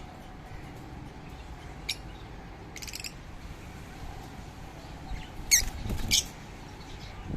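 Ringneck parrots calling: a short call about two seconds in, a brief chatter a second later, then two loud sharp screeches about half a second apart near the end.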